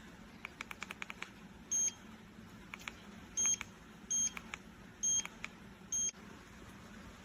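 An electric scooter's control display beeping: five short high-pitched beeps spaced roughly a second apart, the typical feedback as its buttons are pressed, with quick runs of small clicks between them.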